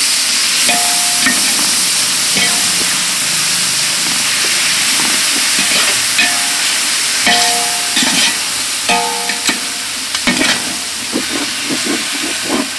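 Tomatoes sizzling in hot oil with fried onions in a large metal pot, stirred with a perforated metal ladle that scrapes and clicks against the pot. A few of the strikes leave the pot ringing briefly, and the clicks come faster near the end.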